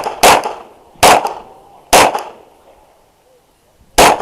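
Glock 34 9mm pistol firing five shots: a quick pair at the start, then single shots about a second apart, and one more after a pause of about two seconds near the end.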